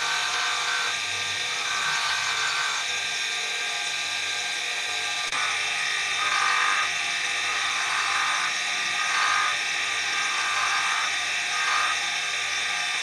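Electric motor spinning a sanding drum, making a steady whirring hiss. Bamboo spoon and fork handles pressed against it add a rasp that swells every second or two.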